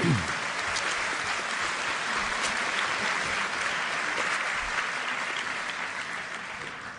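Audience applauding steadily after a lecture ends, the clapping dying away near the end.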